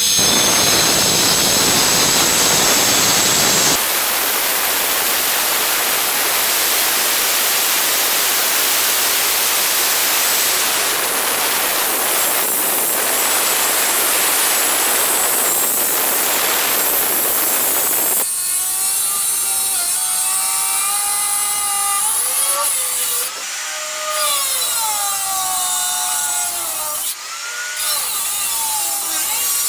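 Handheld electric stone cutter sawing through a Kadappa stone slab, a harsh grinding hiss. In the later part the motor's whine rises and falls in pitch as the blade works through the cut, and the sound dips briefly twice near the end.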